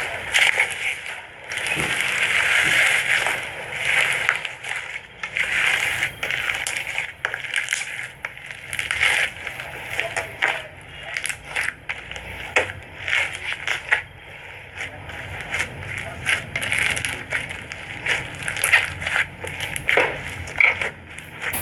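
Foam slime being squished and kneaded by hand: a continuous run of irregular crackling clicks and pops with squishy noise between them.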